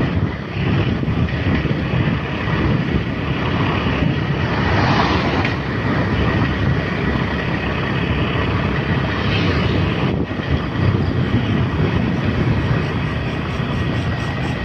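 Road traffic at night: a steady low rumble with wind buffeting the microphone. A vehicle passes about five seconds in and another near ten seconds.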